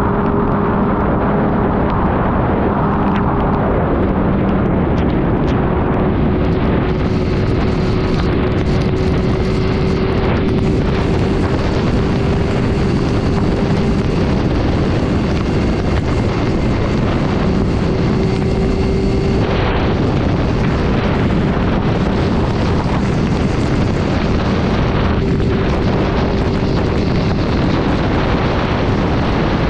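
Superbike cruising at highway speed in heavy rain, recorded on a bike-mounted action camera: loud, steady wind rush over the microphone with the engine's even drone underneath.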